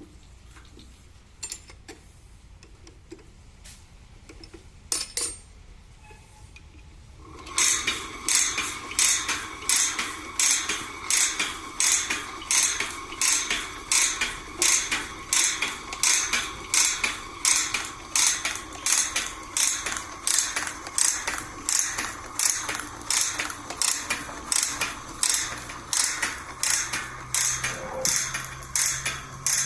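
Automatic bandsaw blade tooth-setting machine starting up about seven seconds in, then running with a regular rhythm of sharp metallic clicks, about one and a half a second, over a steady hum as it works along the blade setting each tooth. Before it starts there are only a few faint clicks.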